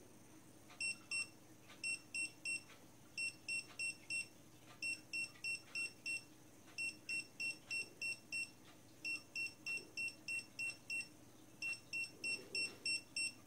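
Dogtrace D-Fence 1001 electronic dog-fence collar receiver beeping out its correction level while a magnet key is held to it. Short high beeps come in groups, each group one beep longer than the last, from two up to eight, as the collar steps from level 2 to level 8, the maximum.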